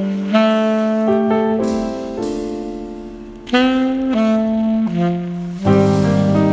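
Slow jazz music: a melody of long held notes, one sliding up into pitch about halfway through, over sustained chords, with a low bass note coming in near the end.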